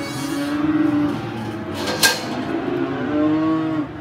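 Cattle mooing in a stockyard pen, with long low calls near the start and again near the end, and one sharp knock about halfway through.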